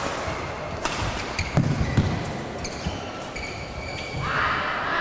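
Badminton rally: rackets smacking the shuttlecock, three sharp hits in the first two seconds, among the thuds of players' feet and the short squeaks of court shoes on the floor.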